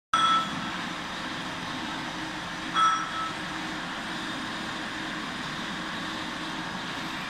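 Steady machine hum in a factory workshop, with two short metallic clinks that each ring briefly: one just after the start and a louder one about three seconds in. They come from a steel barbell shaft being handled on the support blocks of a hydraulic press.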